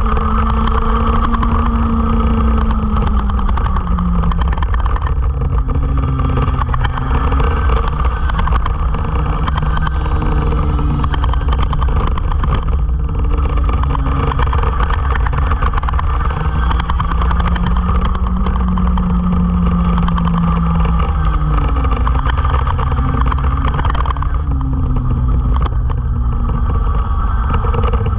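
Onboard sound of a racing vehicle's engine at race pace, its pitch rising and falling several times as it accelerates and backs off through the corners, over constant wind rumble on the camera.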